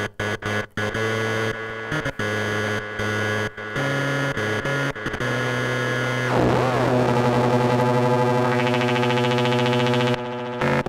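littleBits Korg Synth Kit, a snap-together analog synth built on Monotron circuitry, played from its keyboard module: a string of short buzzy notes stepping between pitches, then a warbling sweep about six seconds in, settling into a long held drone with a fast pulsing upper edge.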